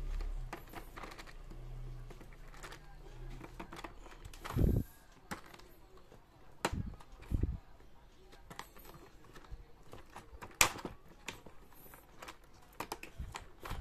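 Small plastic and metal rotary-tool accessories being handled in their moulded plastic case: scattered light clicks and taps, with a few duller thumps about five and seven seconds in and one sharp click near the eleven-second mark.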